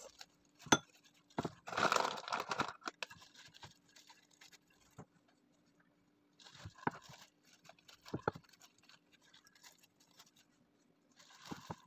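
Clear plastic food-prep gloves crinkling and rustling as hands work the food, in a few short spells, with scattered light taps and clicks. A faint steady hum runs underneath.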